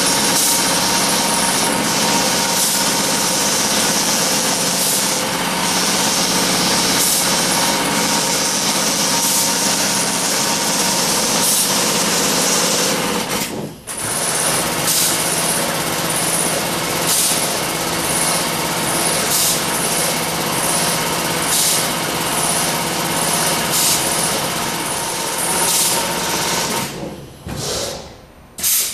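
Wilcom AutoTuft TM3040 tufting machine with its Mk3 pneumatic head running, a fast continuous mechanical chatter as it punches yarn into the backing, with short high sounds recurring every second or so. The sound drops out briefly about halfway and breaks up near the end.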